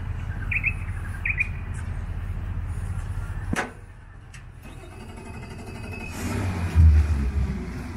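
A steady low rumble, then near the end the new Mercury 3.4-litre V6 four-stroke outboard is cranked and fires for the first time: a brief loud burst as it catches, settling into a low, throaty idle.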